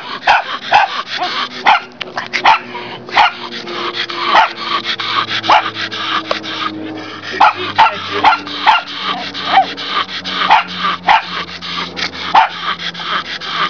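Dog barking over and over in short, sharp barks, about two a second, with no letup.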